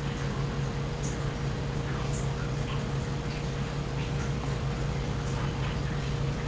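Steady low electrical-sounding hum with a faint higher tone, and faint scattered light clicks over it.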